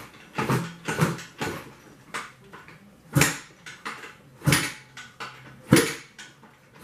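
A Yamaha Banshee's freshly rebuilt 472 cc two-stroke twin being kick-started for its first start. It gives a series of short, irregular bursts as it is kicked over, but it does not catch and run.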